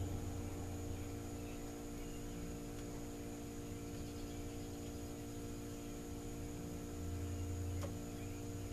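Steady electrical mains hum, with faint low breathy puffs near the start and again about seven seconds in as a cigar is drawn on over a lighter flame to light it.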